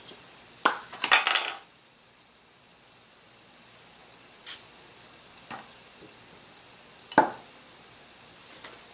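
Scattered small clicks, rattles and knocks from handling tools and light wooden model parts on a workbench, with a short hiss from an aerosol spray can about halfway through. The loudest is a sharp knock near the end.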